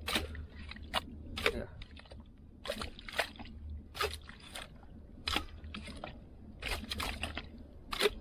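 Hand hoe chopping and scooping into wet tidal mud: repeated irregular wet strikes and squelches, about one or two a second.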